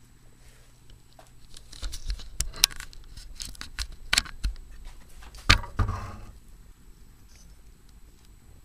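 Hand tools and small metal engine parts clicking, scraping and knocking while a small two-stroke engine is taken apart, with several sharp knocks, the loudest about five and a half seconds in. It goes quiet after about six seconds.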